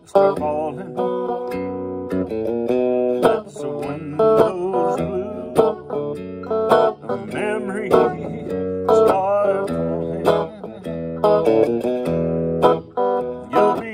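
Electric guitar with single-coil pickups played through a Grundig tube radio used as a guitar amplifier: a melody of single notes with string bends.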